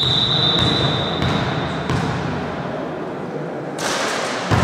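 Volleyball referee's whistle: one steady blast of about two seconds, the signal to serve. A sharp thud comes near the end.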